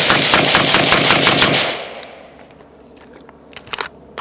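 Suppressed AR-15 with a 12-inch barrel firing a rapid string of shots, about seven a second, that stops a little under two seconds in. A few sharp clicks follow near the end.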